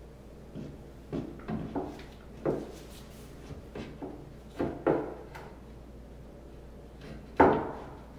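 A series of about nine knocks and clunks at uneven intervals as a backsplash side piece and the telescoping support poles bracing it are set in place against a vanity countertop, the loudest a sharp knock near the end.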